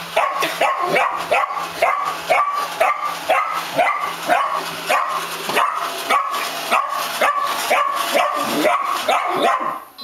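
Miniature dachshund barking over and over at a Roomba robot vacuum that it dislikes, about three sharp barks a second, stopping just before the end.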